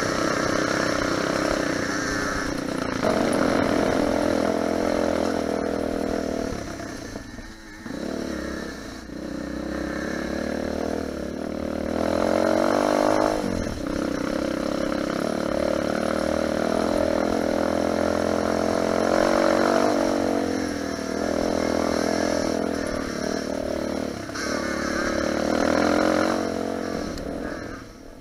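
Single-cylinder four-stroke Lifan 250 pitbike engine under way, revving up and down with the throttle and gear changes, with a few brief throttle-offs.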